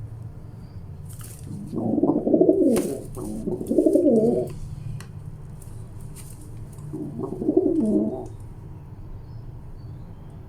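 Male rock pigeons cooing: three low, throaty coo phrases, two close together about two seconds in and a third about seven seconds in.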